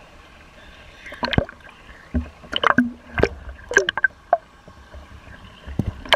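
Water pouring and splashing off a dive boat's diver lift as it rises out of the sea, with a series of sharp sloshes and knocks starting about a second in, over a faint steady hum.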